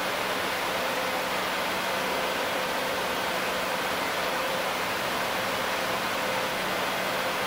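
Steady, even hiss of room noise with a faint low hum underneath, unchanging throughout.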